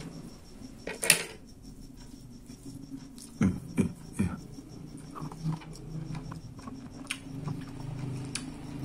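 A man eating fruit: a few sharp wet clicks and smacks from chewing and handling the fruit, with a faint low hum underneath.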